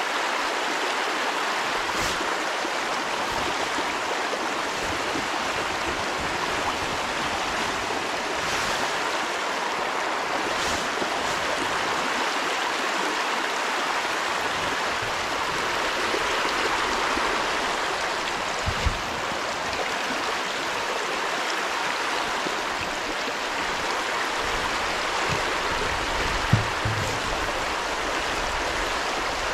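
Shallow river riffle rushing steadily over a stony bed, with a couple of brief soft knocks in the second half.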